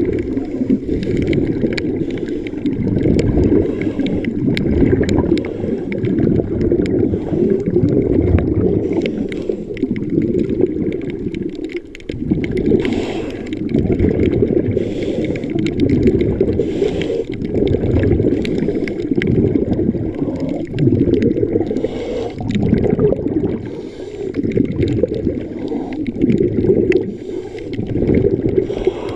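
Muffled churning and sloshing of water picked up by a submerged camera in shallow water under waves. The sound is low and swells and ebbs irregularly, with a few brief brighter gurgles.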